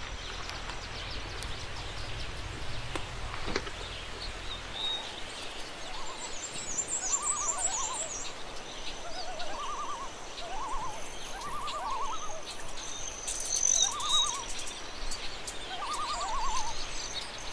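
Outdoor wildlife ambience: an animal repeats a short warbling call, each about half a second long, every second or two, with faint high chirps. A low rumble underneath stops about five seconds in.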